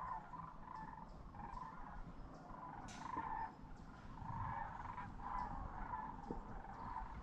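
A distant flock of sandhill cranes calling, many overlapping calls repeating without a break. A brief sharp sound comes about three seconds in.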